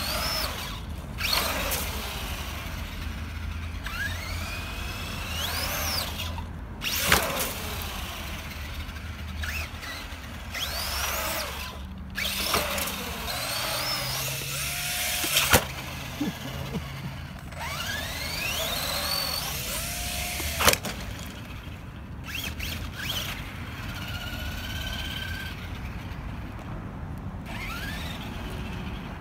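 Arrma Granite 4x4 BLX RC truck's brushless electric motor and drivetrain whining, the pitch rising and falling over and over as it accelerates and lets off, with tyres rolling on concrete. A few sharp knocks stand out, the loudest about 7, 15 and 21 seconds in.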